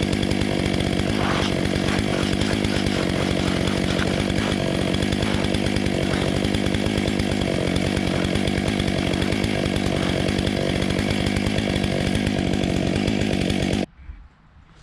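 Stihl MS 661 two-stroke chainsaw running at steady high revs on a chainsaw mill, cutting through a beech log. The sound cuts off suddenly near the end.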